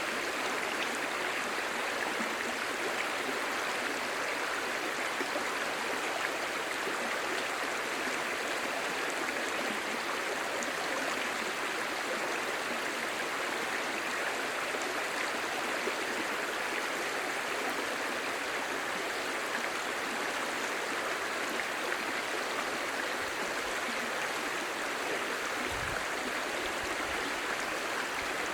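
Clear shallow stream babbling steadily over stones, an even rushing and gurgling of water.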